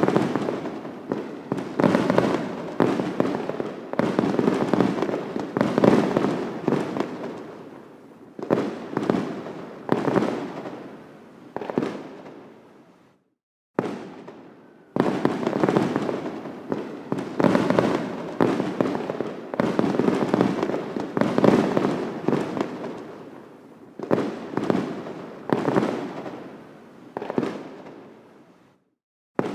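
Fireworks display: a rapid series of loud bangs, each trailing off with crackle, cut by a brief silence about 13 seconds in and again near the end.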